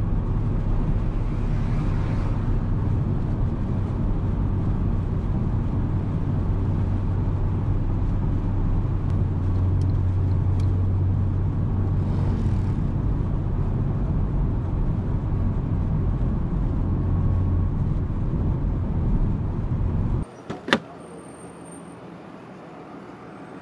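A car driving, a steady low rumble that cuts off suddenly about twenty seconds in, leaving a much quieter background with one sharp click.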